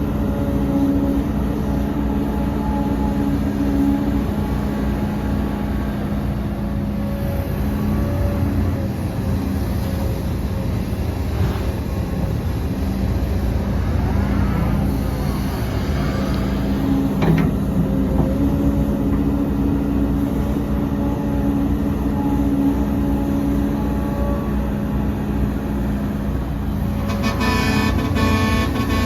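Heavy diesel earthmoving machinery (excavator and dump trucks) running steadily. Near the end a pitched, many-toned sound like a vehicle horn starts.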